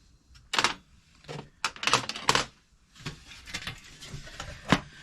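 Sockets and their box being handled, giving a run of sharp, uneven clicks and knocks.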